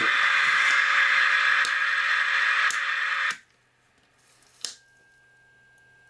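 Loud hiss of radio static from the radio receiver, with a faint steady tone under it, cutting off abruptly about three seconds in. A single click follows shortly before the five-second mark, then a faint steady high tone.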